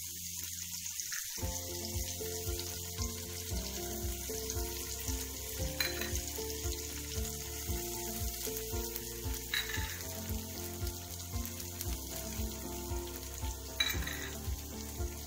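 Chopped dry fruits sizzling steadily as they fry in hot ghee in a non-stick frying pan. Background music with a steady beat comes in about a second and a half in.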